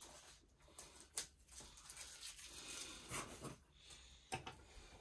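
Faint crinkling of plastic film with a few soft clicks: the plastic covering of a diamond painting canvas being cut open with small scissors.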